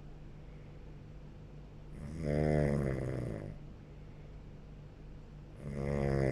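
A sleeping person snoring: two long snores about three and a half seconds apart, each lasting about a second and a half, the second still going at the end.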